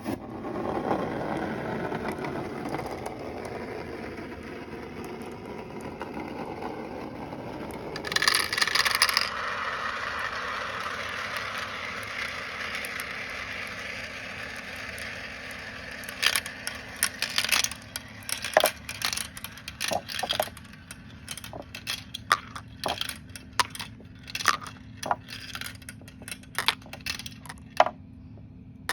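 Marbles rolling down a wavy marble run: a continuous rolling rumble, a burst of clattering about eight seconds in, then from about sixteen seconds many sharp clicks and clacks of marbles striking the track.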